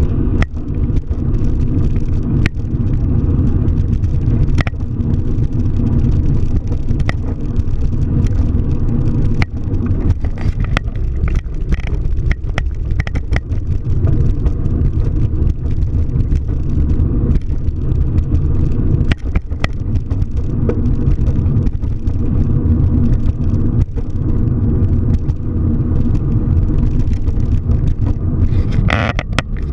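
Car driving: a steady low road and engine rumble with scattered light ticks and rattles. About a second before the end comes a brief higher-pitched sound.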